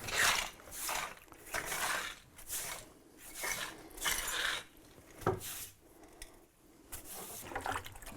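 Broom sweeping in repeated scratchy strokes, about one a second, brushing loose old mortar off brick. The strokes stop about five seconds in, followed by a single knock.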